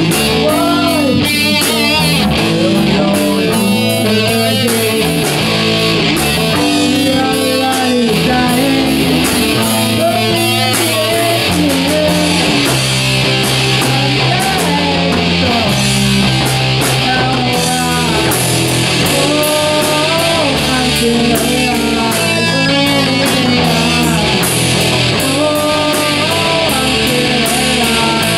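A live rock band playing: distorted electric guitar, bass guitar and a drum kit with cymbals, with a male voice singing over them.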